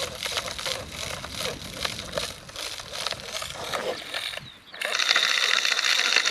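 Scattered clicks and knocks, then after a short drop-out about four and a half seconds in, a loud, steady, fast mechanical rattle like a small engine running.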